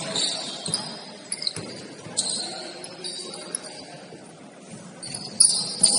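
Basketball game play: the ball bouncing on the court and short, high sneaker squeaks, with faint voices of players underneath. A sharp squeak stands out about five and a half seconds in.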